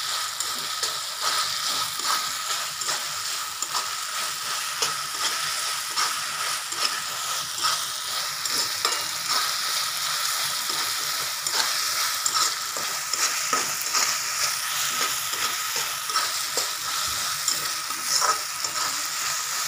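Chopped onions, tomatoes and cashews frying in oil in a metal pan, a steady sizzle, while a wooden spatula stirs and scrapes against the pan in quick, irregular strokes.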